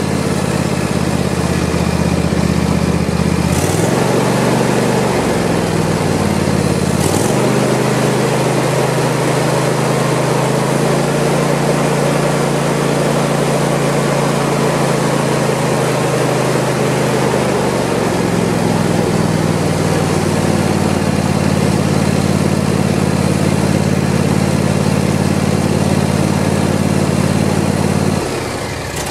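Freshly rebuilt Briggs & Stratton Intek 23 hp air-cooled V-twin running steadily, its speed shifting a few times in the first twenty seconds before it settles. Its sound drops away about a second before the end.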